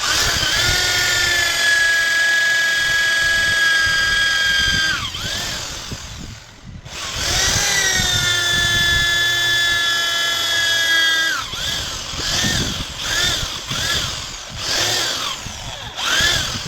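Electric power drill running at full speed in two long runs, each winding down when released, then several short trigger pulses in quick succession.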